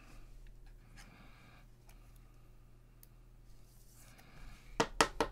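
Cellophane wrapper of a trading-card pack crinkling faintly as it is handled, then a quick run of sharp, louder crackles near the end.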